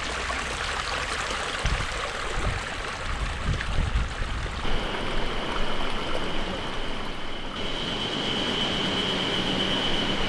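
Steady rushing of flowing water, like a stream, with a few low thumps about two to four seconds in. A faint steady high-pitched tone comes in near the end.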